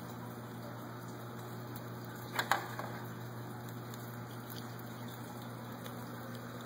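Steady room hum and hiss, with one short clatter about two and a half seconds in.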